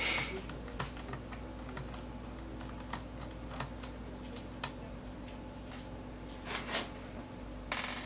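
Scattered light clicks and ticks of small screws and plastic parts being handled on a laptop's plastic bottom case, with a few brief louder scrapes at the start and near the end.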